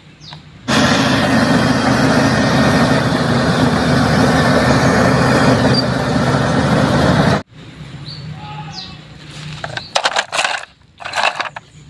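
Engine sound of a bulldozer: a loud, steady engine rumble that starts abruptly just under a second in and cuts off suddenly about two-thirds of the way through. A few light clicks and knocks follow near the end.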